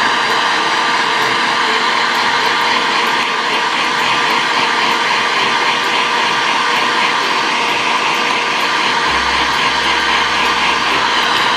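Handheld electric heat gun running steadily, a constant rush of hot air blown onto a plastic eyeglass temple arm to soften it for bending.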